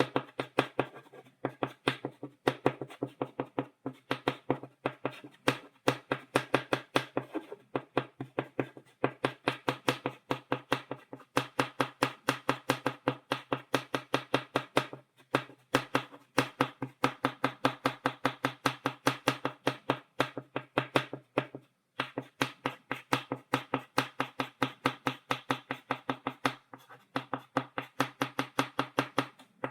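Stick of chalk tapping on a blackboard, stippling dots: rapid, sharp taps at about four or five a second, with a few brief pauses.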